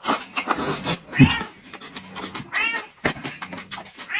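A cat meowing three times, each a drawn-out meow that rises and falls in pitch, over short sharp clicks and crunches of eating.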